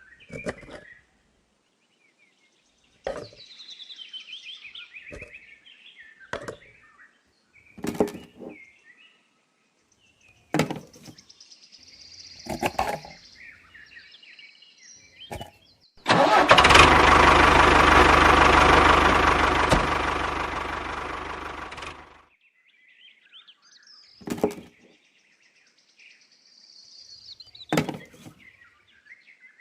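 Scattered knocks and taps, then a motor runs loudly for about six seconds, starting suddenly and fading out.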